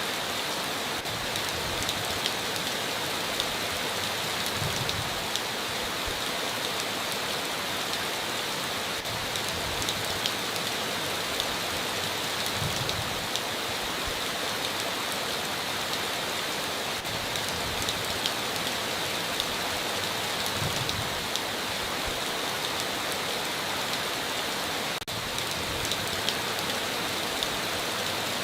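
Steady heavy rain on a tin roof, with single louder drops ticking through it.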